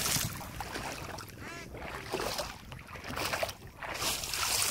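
Feet wading and kicking through shallow water in a flooded rice field, a swishing splash about once a second, as water is kicked to flush out climbing perch.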